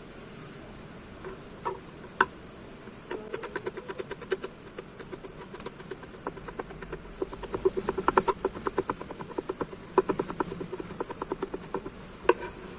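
Kitchen knife chopping fast on a cutting board in three quick runs of even knocks, with a few single knocks before and after. Garlic, ginger and onion are being chopped.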